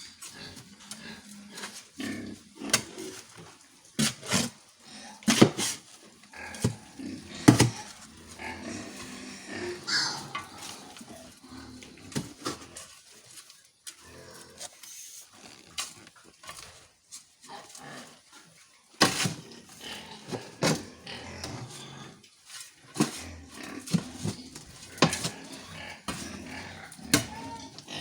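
Pigs grunting, amid repeated sharp knocks and scrapes of feed being mixed.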